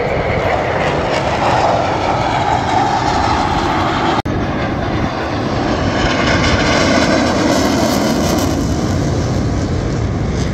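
Jet noise of Korean Air Force T-50B jets flying past overhead, a steady loud roar from their turbofan engines. The sound drops out for an instant about four seconds in.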